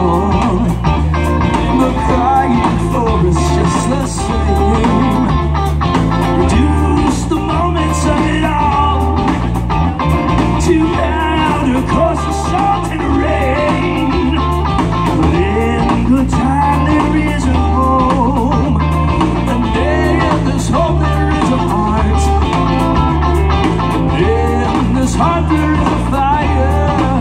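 Live rock-blues band playing: electric guitars, keyboard, bass and drum kit on a steady beat, with a sung lead vocal.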